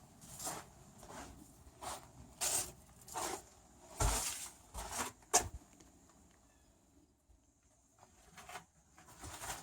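Footsteps crunching on rough ground, roughly one to two a second, stopping for a few seconds in the second half and starting again near the end.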